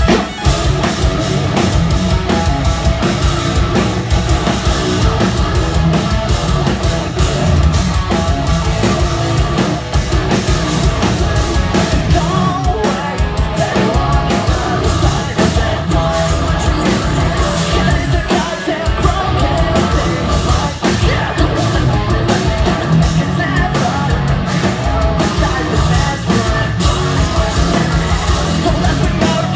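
Live progressive metal band playing at full volume: distorted guitars, heavy fast drums and vocals, heard from within the audience of a club show. The full band comes in right at the start.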